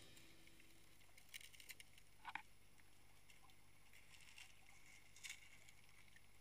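Near silence, with a few faint, short clicks and ticks scattered through it.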